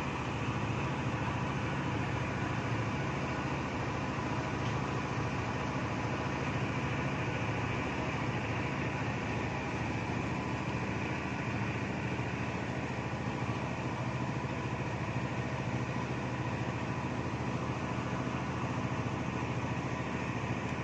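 An engine running steadily at idle, with a constant low hum under an even hiss.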